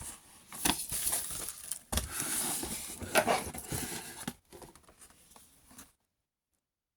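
Action-figure packaging being handled and opened: crinkling plastic and rustling cardboard with a few sharp knocks, stopping about six seconds in.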